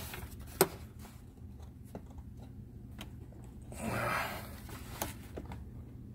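Close breathing and small handling noises over a low steady hum, with one sharp click about half a second in and a longer breath about four seconds in.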